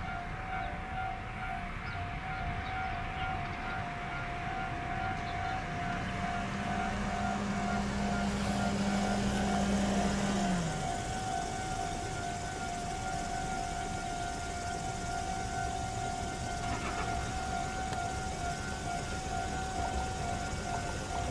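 Railway level-crossing alarm ringing, a steady pulsing electronic tone repeating without a break, while a Tobu 8000 series electric train approaches with a low, slowly growing rumble. A low hum slides down in pitch and stops about ten seconds in.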